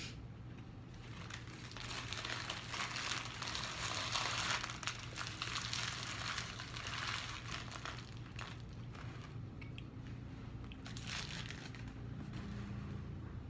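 Paper food wrapper crinkling and rustling as it is handled, busiest in the first half and briefly again near the end.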